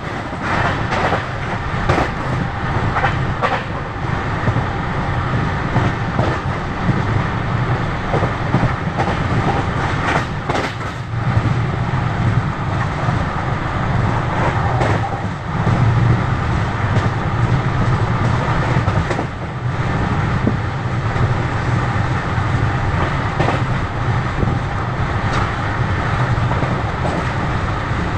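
Passenger train running at speed, heard from aboard: a steady rumble and rush of wheels on rail, with irregular clicks as the wheels cross rail joints.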